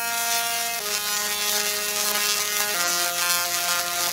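Singing Tesla coils playing a slow melody: their sparks make long buzzing notes, stepping down in pitch about a second in and again near three seconds in.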